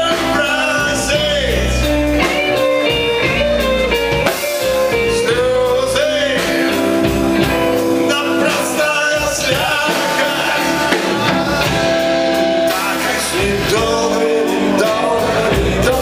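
A rock band playing live, with electric guitars and a voice singing over them.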